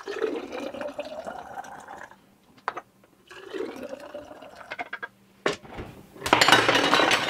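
Thick custard ice-cream base poured from a stainless steel pot through a funnel into glass mason jars, the pitch of the filling rising as each jar fills: two pours, the second starting about three and a half seconds in. A bit past six seconds, a loud clatter of utensils in an open kitchen drawer.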